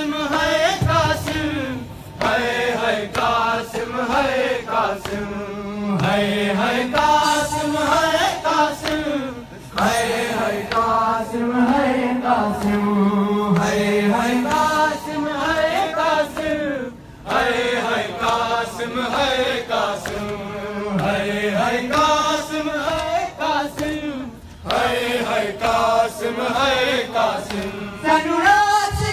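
A group of men chanting a noha, a Shia mourning lament, in unison, led by a reciter on a microphone. The phrases last about seven seconds each, with short breaks between them.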